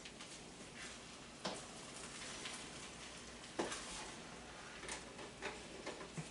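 Faint scraping of a utensil in a cooking pan, with a couple of sharper knocks against the pan.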